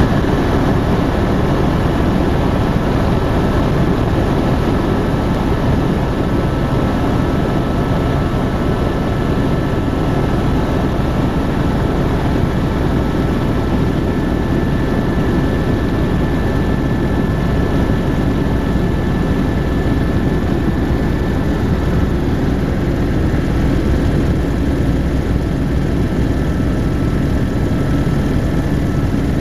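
Helicopter running steadily: a loud, dense low drone of rotor and engine with a faint steady whine over it, unchanging throughout.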